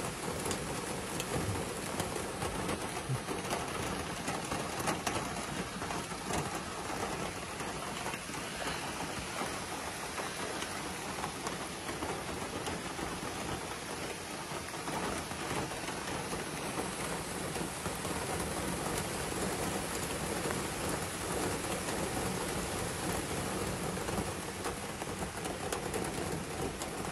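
Heavy rain falling on the roof of a Jeep: a steady, even rush of rain with many small taps of drops.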